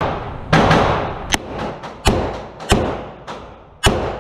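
A string of about five shots from a Ruger LCR .357 double-action revolver firing .38 Special +P rounds, spaced roughly 0.6 to 1 second apart, each with a ringing, echoing tail from the indoor range, and fainter cracks in between.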